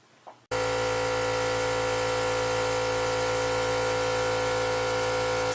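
Small do-it-yourself air compressor running with a steady hum, starting abruptly about half a second in.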